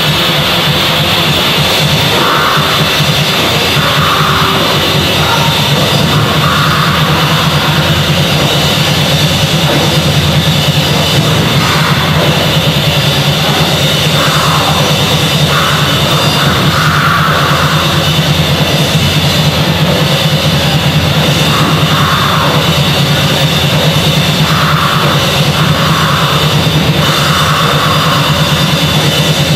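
A black metal band playing live and loud: distorted electric guitars over a drum kit played fast without a break.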